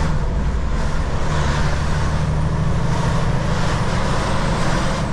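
Semi-truck's diesel engine running steadily under way, heard from inside the cab, with a hiss of road noise that swells and fades.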